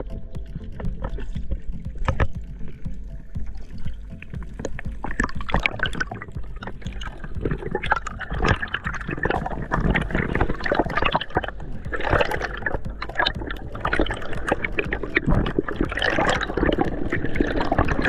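Water heard underwater: rushing and bubbling noise with many irregular crackling clicks, growing busier and louder in the second half.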